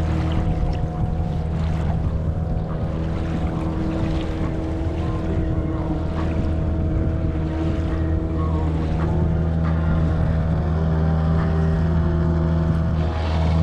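A sailboat's engine motoring at a steady speed, giving a constant low hum.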